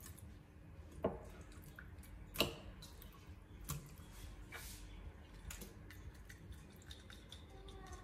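Pieces of raw fish being set by hand into a glass bowl: three main sharp taps a little over a second apart, the middle one the loudest, with softer handling sounds between.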